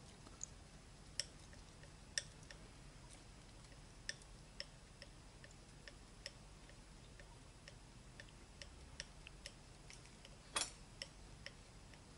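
Faint, irregular clicks and taps of a palette knife against the palette as paint is worked into a swatch, with one louder, brief scrape about ten and a half seconds in.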